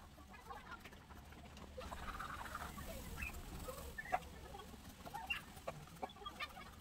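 Faint background of short, scattered animal calls, with a few light clicks; the sharpest click comes about four seconds in.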